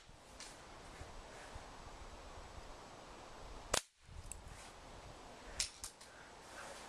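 A pellet from a break-barrel air rifle strikes an old Compaq Presario laptop's keyboard with one sharp crack a little under four seconds in, knocking keys out. A few lighter clicks follow over the next two seconds.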